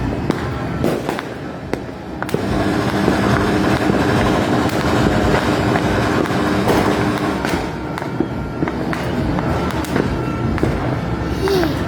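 New Year fireworks and firecrackers going off all around: many scattered bangs and crackles over a dense, continuous rumble of distant bursts.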